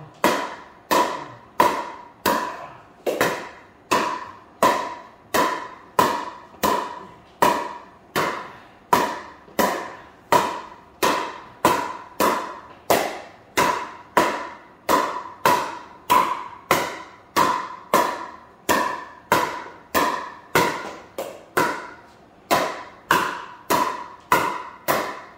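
Pickleball paddle striking a plastic pickleball in a rapid volley drill: a hard pop about every 0.6 s, some forty in an even run, each ringing briefly in the room.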